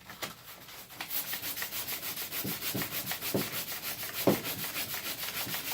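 Hand sanding with sandpaper: rapid, even back-and-forth scratchy strokes, fainter for the first second, with a single sharper knock midway. The sandpaper is working the whole underside of a chromatic harmonica's mouthpiece slider, the stage where the fit is close to done.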